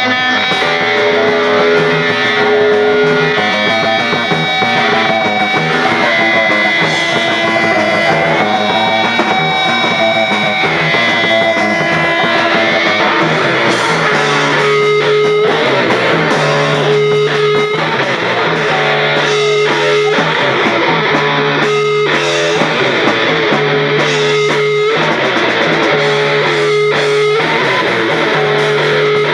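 Punk rock band playing live: distorted electric guitar, bass guitar and drums. About halfway through, the band settles into a stop-start riff that cuts out briefly every two to three seconds.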